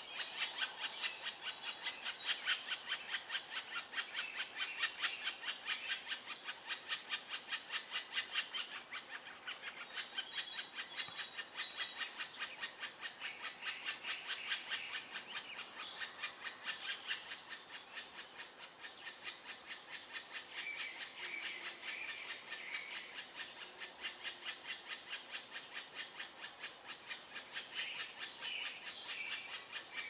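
Black woodpecker nestlings begging from inside the nest hole: a rapid, steady run of rasping calls, about four or five a second, with a short lull about a third of the way in.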